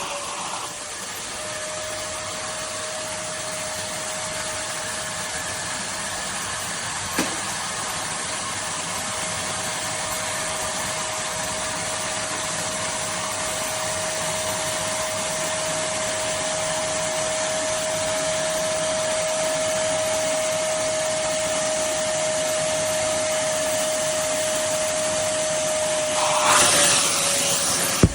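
Kärcher WD 2 Plus 1000 W wet-and-dry vacuum cleaner running steadily with an even motor whine under a rush of air. There is a single click about seven seconds in. Near the end comes a louder rush of suction as the whine dips slightly.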